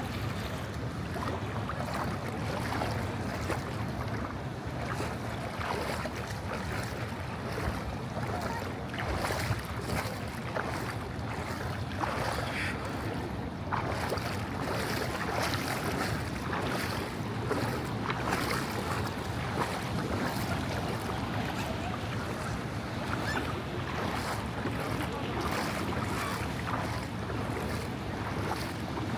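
Ocean surf washing and splashing, with wind buffeting the microphone.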